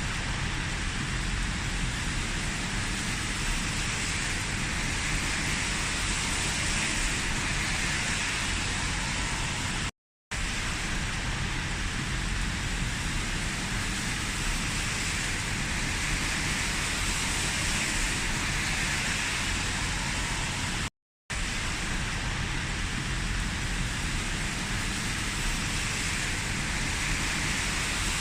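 Steady, even rushing noise with no tone or rhythm, in three stretches of about ten seconds each, cut by two short gaps of silence.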